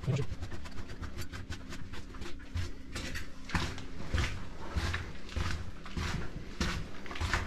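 Footsteps crunching along a gritty tunnel floor at walking pace, a few steps a second, with low thuds and rustle from walking and carrying the camera.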